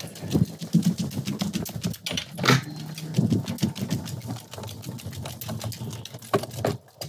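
Footsteps on a hard floor, a knock about every second, under a fast, even clicking.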